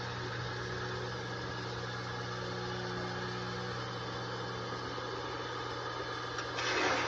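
Belt-driven wood lathe running with a steady motor hum while the spindle turns. About six and a half seconds in, a brief, louder, harsh scraping as a turning tool touches the spinning wood.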